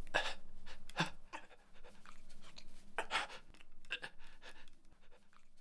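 A person panting: separate heavy breaths, some quick and some spaced a second or more apart, growing fainter toward the end.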